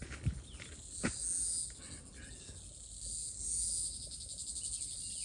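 Crickets chirping in a high-pitched chorus that swells and fades, becoming a fast even pulsing in the second half, with a couple of soft thuds about a second in.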